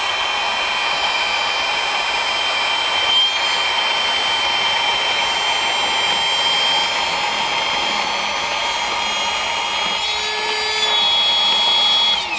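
Flextail Gear Max Pump 2, a small rechargeable battery-powered air pump, running steadily with a whine as it inflates a sleeping pad. About ten seconds in its tone shifts and it gets a little louder, and at the very end it winds down as it switches off.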